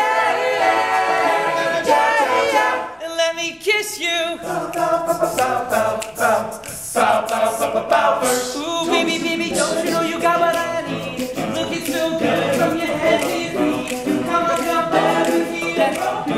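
All-male a cappella group singing a pop song in close harmony, voices only, with a brief drop in the sound about three seconds in.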